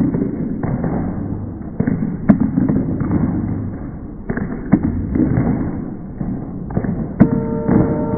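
Irregular dull thuds and sharp knocks over a rumbling noise. A steady tone with several pitches comes in about seven seconds in.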